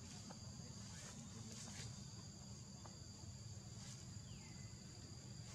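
Faint, steady high-pitched drone of insects in the forest, held at two even pitches, over a low outdoor rumble. A few faint clicks and one short falling chirp come about four seconds in.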